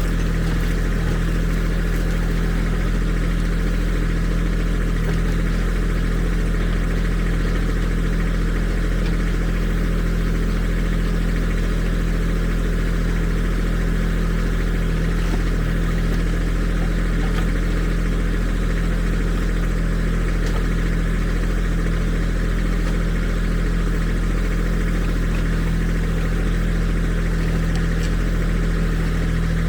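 Kubota SSV75 skid steer's diesel engine running at a steady speed, a constant low engine drone with no revving or break.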